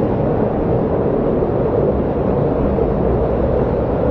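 Waterfall: falling water making a steady, low rushing noise.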